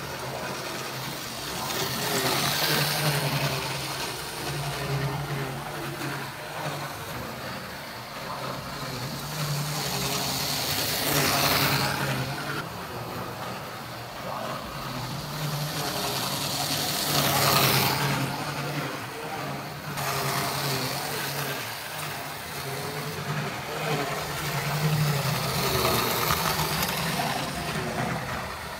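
Tri-ang R.357 Class 31 model diesel locomotive running round OO gauge track, its small electric motor humming steadily and its wheels rattling on the rails. The sound swells and fades several times as the train comes close and moves away.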